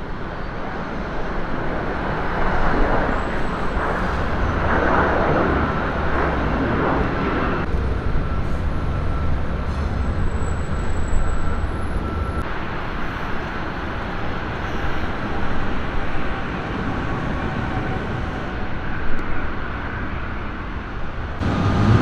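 Steady rumble of road traffic, swelling as a vehicle passes about five seconds in.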